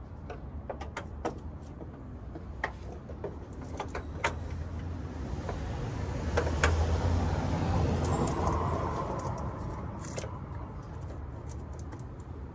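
Scattered light clicks and rattles of parts being handled while an LED light is fitted into a car, with a vehicle passing by: its sound swells over a few seconds in the middle, then fades.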